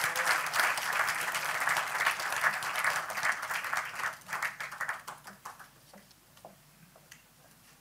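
Audience applauding: a dense round of clapping that thins out to a few scattered claps and dies away about six seconds in.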